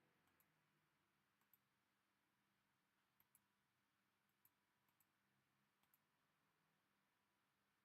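Near silence, broken by about ten very faint short clicks, several in close pairs.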